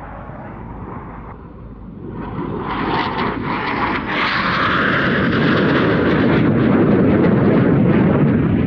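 Dassault Rafale C fighter's twin Snecma M88 turbofans on a low pass, the jet noise swelling from moderate to loud over the first few seconds. A higher rushing noise comes about three to five seconds in, then a deep, steady rumble.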